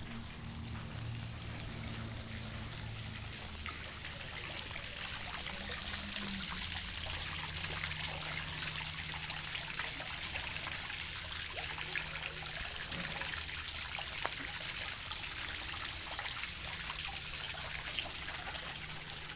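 Water trickling and splashing into a small garden pond, growing louder about four seconds in and then holding steady, with a low steady hum underneath.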